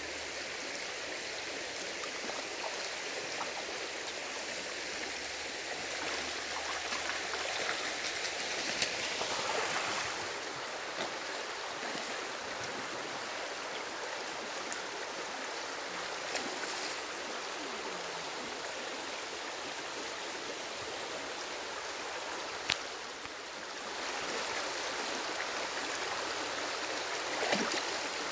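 Shallow creek flowing over a gravel bed: a steady rush of running water, with a few sharp clicks.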